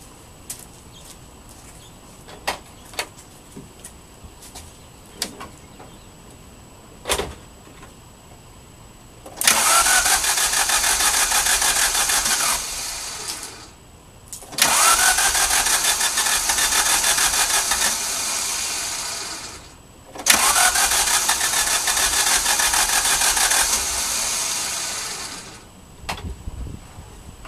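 Alfa Romeo's starter motor cranking the engine in three long tries of about four to five seconds each, the whine rising as each one begins, without the engine catching: a no-start. A few light clicks come before the first try.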